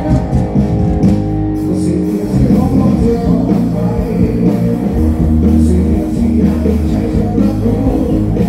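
Loud rock music with guitar, a bass line and singing.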